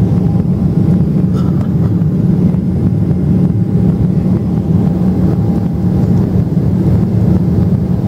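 Cabin noise of a Boeing 777-300ER in its climb after takeoff, heard beside its GE90-115B engine: a steady low drone with a faint steady whine above it.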